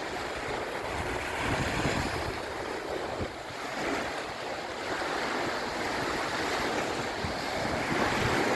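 Lake Erie waves washing onto the shore in a steady, gently swelling wash, with wind buffeting the microphone.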